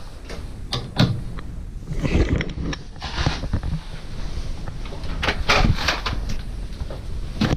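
Work noise inside a furnace cabinet: scattered sharp clicks, knocks and rattles of tools and metal parts being handled, in clusters about a second in, around two to three seconds in and again near five to six seconds, over a steady low rumble.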